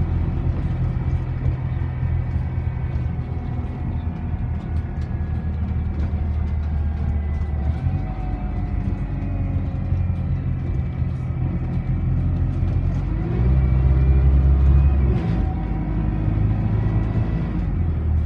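Cabin noise inside an Enviro400 double-decker bus on the move: a steady engine drone with road rumble, the engine note changing pitch several times and getting loudest for a couple of seconds about two-thirds of the way through.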